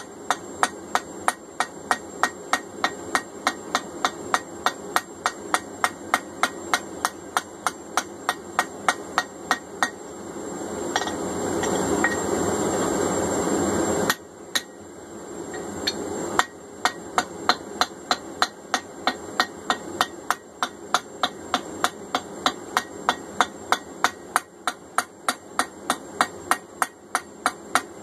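Hand hammer striking hot steel on an anvil at a steady pace of about three blows a second, forging a small hammerhead. Partway through, the blows stop and a rushing noise swells for about four seconds, cuts off suddenly, comes back briefly, and then the hammering starts again.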